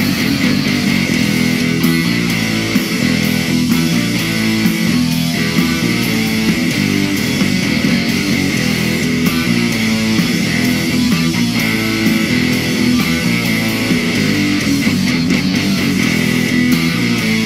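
A live band plays an upbeat instrumental. Electric guitar and bass guitar are at the front, with keyboard, and the playing runs steadily with no pause.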